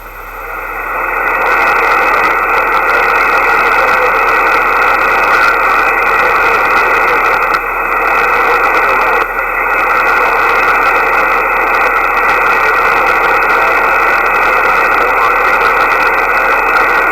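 Steady hiss and band noise from a shortwave ham radio receiver's speaker on an open frequency between transmissions, rising over the first couple of seconds as the receiver gain recovers after the last signal drops.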